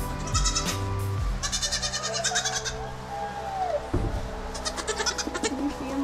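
Goat kids bleating, several high, wavering calls in quick bursts, one sliding down in pitch about halfway through.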